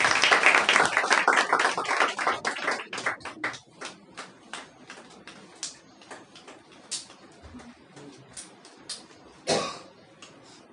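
Audience applauding, dense at first and then thinning out over several seconds to scattered single claps. A short burst of noise comes near the end.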